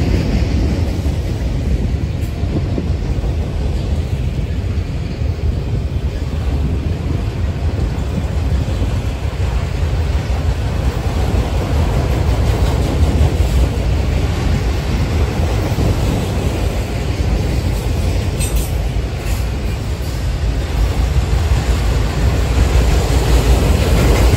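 A long freight train of autorack cars rolling past close by: a steady, low rumble of steel wheels on the rails.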